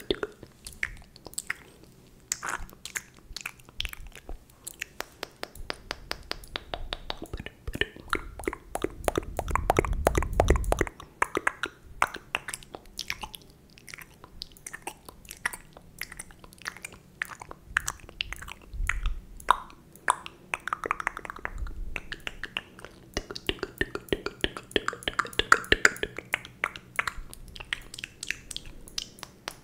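Wet mouth sounds close to the microphone: rapid clicks, smacks and pops, with a louder, denser stretch about ten seconds in.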